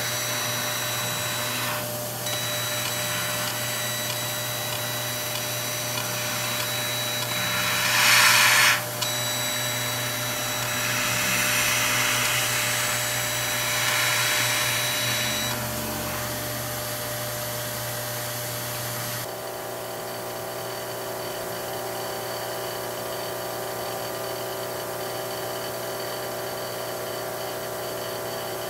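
CO2 laser cutter running as it cuts paper: a steady machine hum with fixed high tones, and several louder bursts of noise, the loudest about eight seconds in. About two-thirds through, this gives way to a different steady buzzing hum from the aquarium water pump and diaphragm air pump that serve the cutter.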